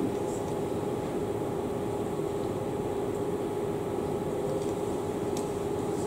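Room tone: a steady fan hum with a constant low tone running under it.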